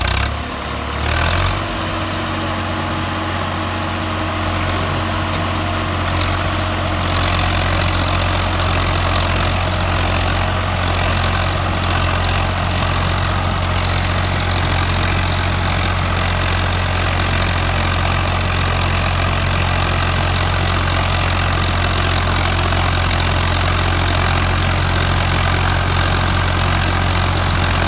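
Swaraj 855 tractor's three-cylinder diesel engine working under load at about 1600 rpm, pulling a 7 ft super seeder through straw stubble. It builds up over the first few seconds, then runs at a steady pitch without dropping revs, with a rushing noise from the seeder's rotor over it.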